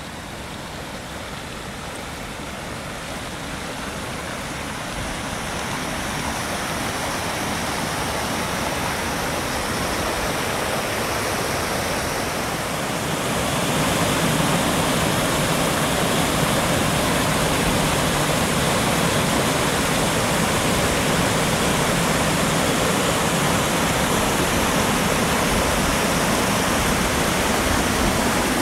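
Rocky mountain creek rushing over small cascades between boulders: a steady rushing of water that grows louder, stepping up about halfway through as the cascade comes close.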